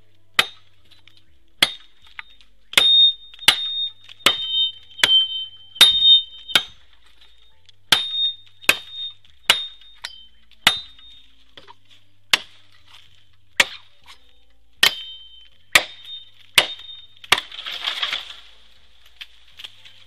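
Machete chopping a green bamboo culm, about eighteen sharp strikes roughly a second apart, many followed by a brief high ring from the blade. Near the end comes a short rush of crackling and rustling as the severed culm gives way.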